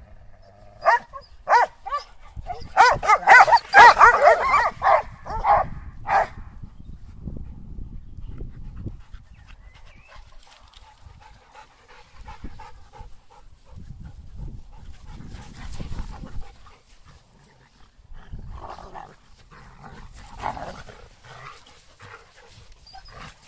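Several dogs barking in a dominance squabble: sharp single barks, then a dense, loud flurry of barking a few seconds in, dying down to quieter low noise before more scattered barks and yelps near the end. It is posturing to settle the pack order, with no actual biting.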